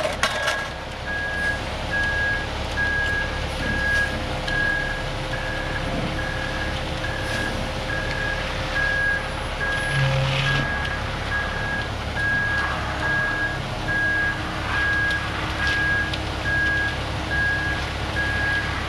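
A truck's reversing alarm beeping steadily, a little more than once a second, over the low running of the truck's engine.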